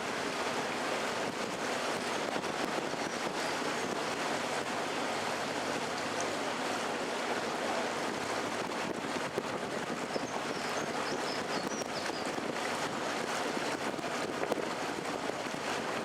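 Open canal tour boat under way: a steady wash of water along the hull, with wind on the microphone.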